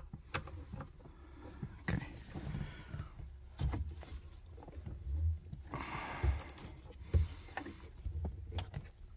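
Scattered clicks, knocks and short scraping sounds of a small ratchet with a T27 Torx socket being worked against the shift-lever screw on a pickup's steering column, with a few dull thumps along the way.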